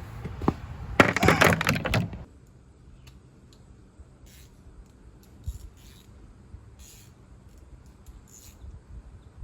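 Starter cranking the racing lawnmower's twin-cylinder engine in one loud burst of about a second, without the engine catching; a few faint clicks follow.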